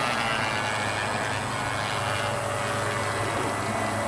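Radio-controlled model aircraft's propeller motor running steadily while it taxis, a constant pitched hum with a thin high whine over it.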